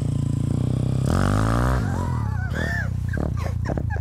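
YCF Bigy pit bike's single-cylinder four-stroke engine running as the bike pulls away, revving up briefly about a second in and then settling. Short high calls sound over it in the second half.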